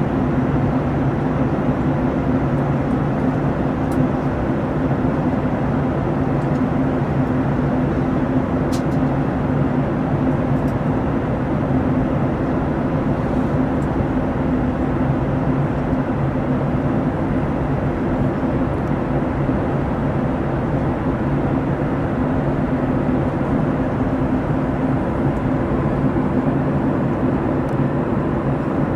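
Steady drone of a Boeing 737-900ER in flight, heard from inside the cabin: its CFM56 engines and the rush of air make an even noise with a constant low hum.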